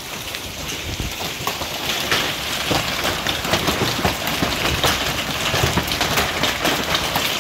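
Heavy hail, up to golf-ball size, falling with rain: a steady dense hiss shot through with many sharp knocks of individual hailstones striking.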